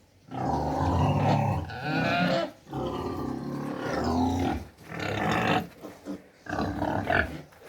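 Pigs calling loudly in about four long, harsh bouts separated by short pauses.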